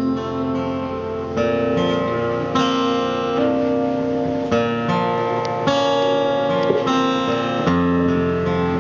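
Acoustic guitar strumming chords in a live performance, an instrumental passage with no singing. The chord changes about every second.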